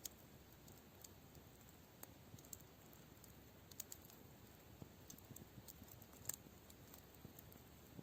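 Faint campfire crackle: sparse small pops and snaps, several a few seconds apart and one sharper near the middle, over low, quiet outdoor background.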